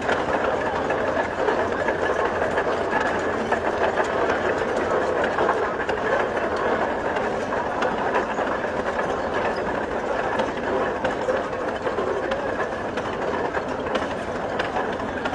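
Large early vintage tractor with iron-spoked wheels running and driving slowly, giving a steady mechanical clatter.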